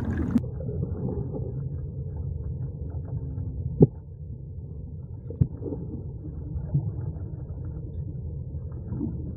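Muffled underwater sound picked up by a submerged camera: a steady low rumble of water, with two sharp knocks, about four and five and a half seconds in.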